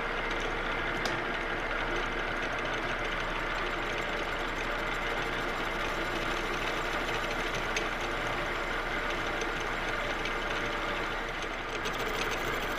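Metal lathe running steadily while a carbide insert takes a light, hand-fed pass across a hardened steel part (about 55–60 Rockwell).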